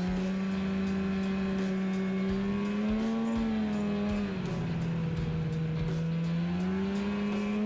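Polaris snowmobile engine running while the sled climbs a groomed trail; its pitch dips a little about halfway through and rises again near the end as the throttle is eased and reopened.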